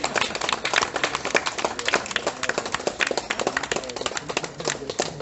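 A crowd clapping, many hands at once, with voices underneath.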